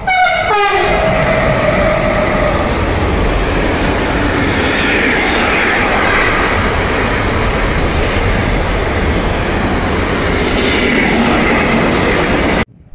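A train passing at speed: a loud, steady rush of wheel and rail noise, opening with a brief tone that falls in pitch. The sound cuts off suddenly near the end.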